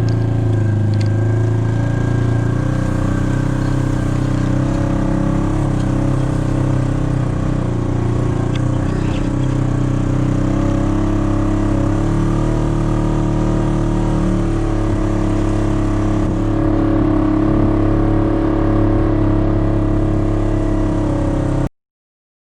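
Polaris RZR 900 side-by-side's engine running steadily at a fairly even speed, cutting off suddenly near the end.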